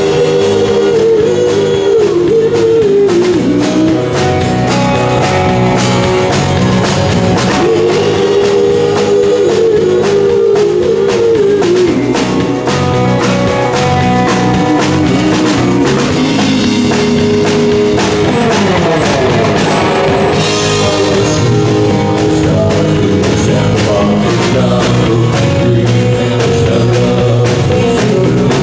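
Rock band playing a song: electric guitars and a drum kit, with a melodic line sliding up and down over the steady beat.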